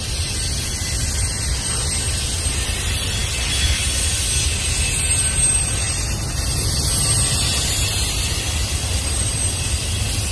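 Double-stack intermodal train's well cars rolling past on steel rails: a steady low rumble with a high hiss over it that keeps up without a break.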